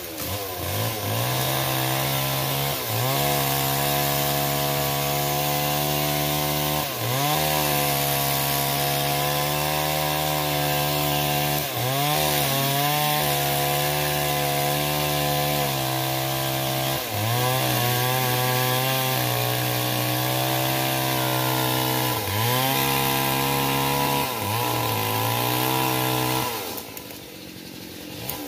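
Two-stroke chainsaw running at high throttle and cutting into trembesi (rain tree) wood. Its pitch dips briefly every few seconds as the chain loads up in the cut, then picks up again. Near the end the engine drops back for about a second before revving up again.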